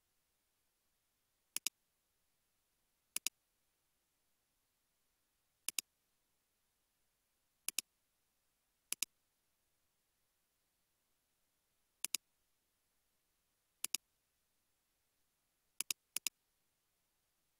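Computer mouse clicks, each a quick press-and-release pair, about nine of them spaced irregularly over near silence.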